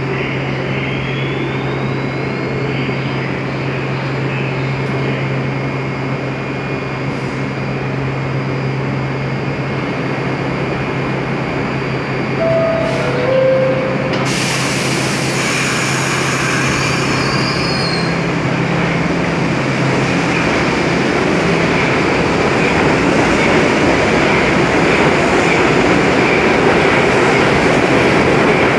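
New York City Subway (1) train standing at the platform with a steady hum. About halfway through comes the two-note falling door chime, then a sudden hiss of air. After that the train pulls out, its wheels and motors growing louder toward the end.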